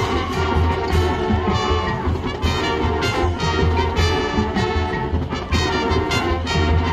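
High school marching band playing, brass loudest, with several sharp accents from the percussion.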